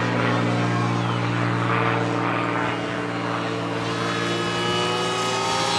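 Electric pusher propeller of a foam RC model L-39 jet, a Scorpion SII 3020 brushless motor turning an 8x8 APC prop, whining steadily in flight, its pitch creeping up toward the end.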